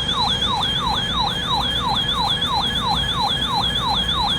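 Electronic siren-like alert tone sounding the attention signal for a flash flood warning: a rapid falling yelp repeated about three times a second, steady and unbroken.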